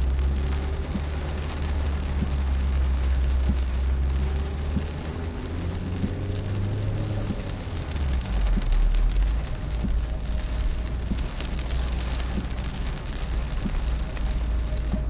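Car driving in rain, heard from the dashcam's microphone inside the cabin: a steady low engine and road drone, with rain hitting the car and scattered small ticks. The drone shifts lower about eight seconds in.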